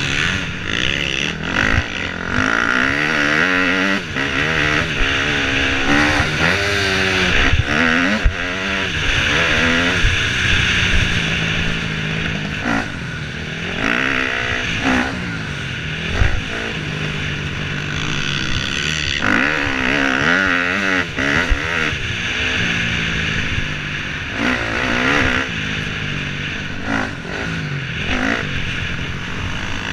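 KTM 250 dirt bike engine revving hard, its pitch climbing and dropping over and over as the rider works the throttle and gears along the track.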